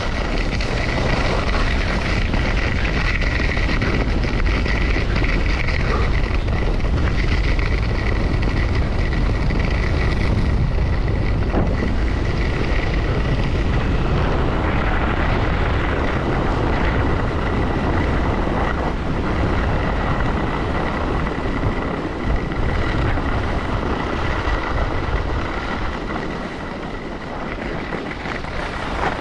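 Wind buffeting the microphone during a fast downhill ski run, mixed with the hiss and scrape of skis over groomed snow, with a thin steady whistle above it. The rush eases a few seconds before the end as the skier slows on flatter snow.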